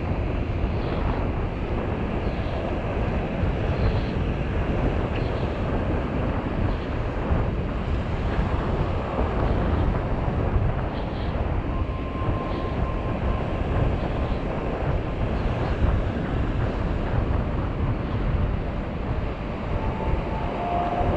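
Strong wind buffeting the microphone in a steady low rumble, with surf on the beach beneath it.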